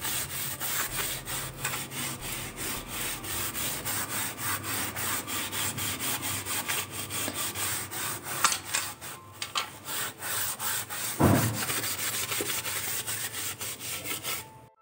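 Steel wool scrubbing wet, grimy ceramic tiles around a sink drain in quick back-and-forth strokes, about four a second, loosening soaked-in dirt. There is one louder thump about eleven seconds in, and the scrubbing stops just before the end.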